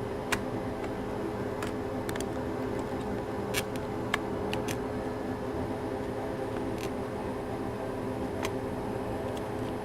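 Steady hum of bench equipment, such as a fan, with several light clicks and ticks scattered through it, from small parts and connectors being handled.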